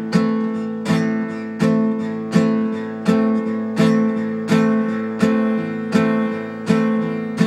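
Acoustic guitar strummed in an even rhythm, about one stroke every three-quarters of a second, each chord ringing on until the next.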